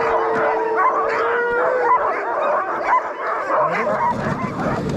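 A team of Alaskan husky sled dogs howling and yipping together in many overlapping calls, one long howl held steady through the first two seconds. This is the excited chorus a harnessed team gives just before a run, which goes on for about 30 seconds to a minute and then stops all at once.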